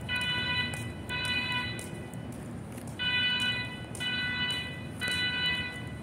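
School fire alarm sounding the temporal-three evacuation signal: three even beeps about half a second each, a pause, then three more. This is the building's evacuation alarm being tested.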